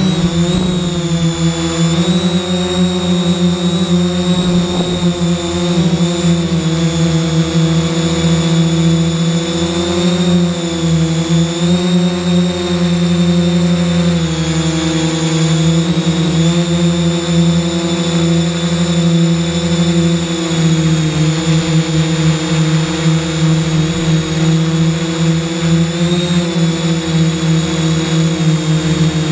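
3DR X8 coaxial multirotor's electric motors and propellers droning steadily, heard from on board, with a high whine over a low hum and the pitch wavering slightly every few seconds as the motors adjust speed in flight.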